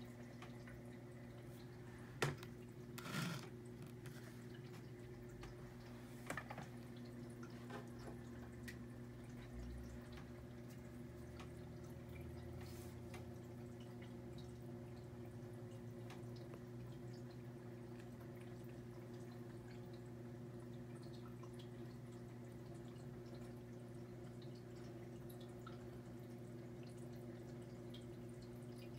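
Aquarium hang-on-back filter running: a steady electric hum with water trickling and dripping back into the tank. A few sharp clicks come about two and three seconds in and again about six seconds in.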